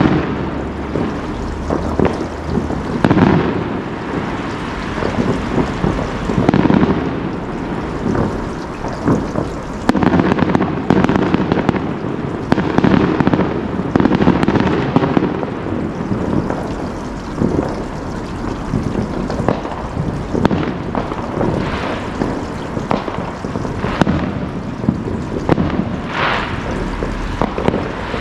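Fireworks display: a dense run of bangs and crackling bursts one after another, thickest in clusters about three, six and ten to fifteen seconds in.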